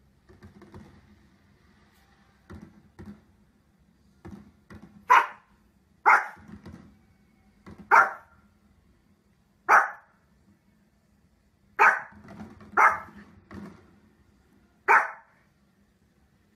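Small Pomeranian-type dog barking: after a few soft sounds, seven sharp, separate barks come a second or two apart, starting about five seconds in.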